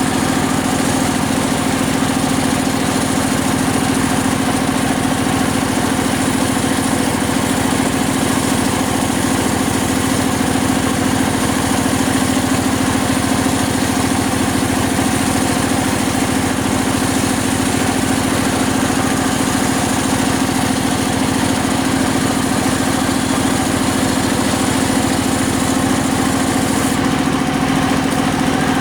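Circular saw rig for cutting sengon timber running steadily, with a constant machine hum at one even pitch.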